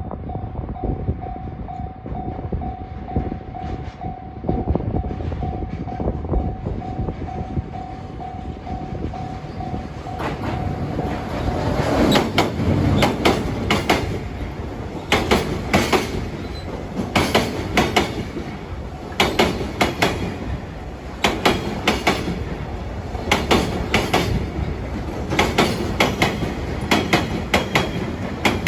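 A level crossing warning bell rings steadily. About twelve seconds in, a DD200 diesel-electric locomotive hauling a freight train passes. The wagons' wheels then clack over the rail joints in repeated pairs of clicks until the end.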